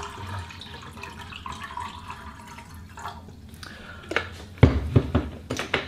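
Water poured from a jug into a steel camping cup, pouring for about three seconds; then a few sharp knocks from about four seconds in.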